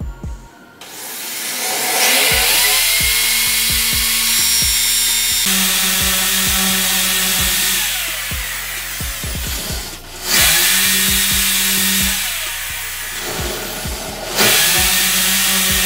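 Buildskill corded electric drill boring into a plastered wall. It spins up about a second in and runs hard under load, easing off briefly twice in the second half before speeding up again.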